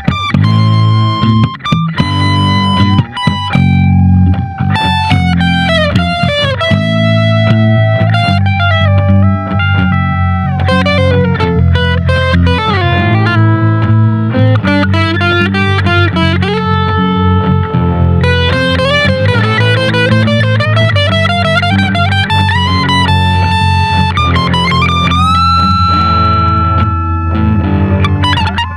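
Electric guitar playing a lead solo in an A minor blues, with many string bends and held notes, over a steady low backing part.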